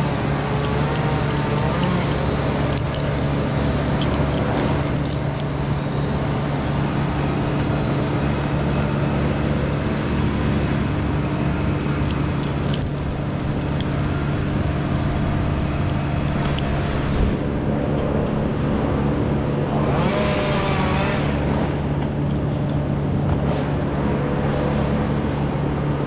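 An engine running steadily at an even speed, with a few faint clicks over it.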